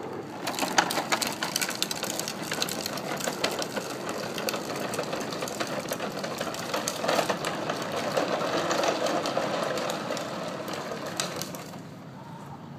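Hard plastic wheels of a child's ride-on trike rattling as it rolls over rubber tiles and paving stones, a dense quick clatter that fades out near the end.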